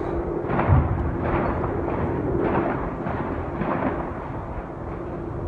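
Repeated distant gunshots, a string of cracks about every half second, each trailing off in an echo.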